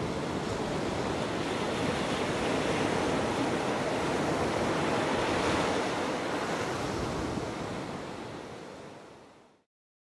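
Small Gulf of Mexico surf breaking and washing up a sandy beach: a steady rushing wash of waves that fades out over the last two seconds and stops just before the end.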